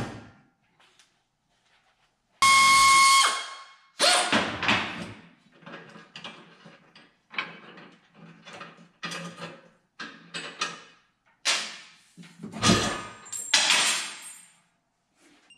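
A cordless ratchet runs for about a second, then come scattered knocks, clicks and metal rattles of bolts and the chrome rear bumper of a 1966 Corvette being worked loose and handled.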